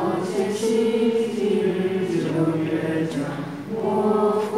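A group of voices singing a song together, with notes held for a second or so.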